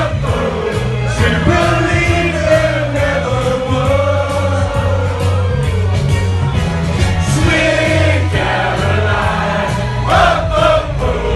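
Pop music played loud over a sound system, with a steady bass beat, and a group of men singing along.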